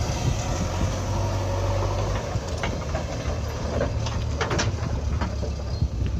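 Backhoe loader's diesel engine running steadily at work, with several sharp metallic clanks and a brief metal squeal a little past the middle.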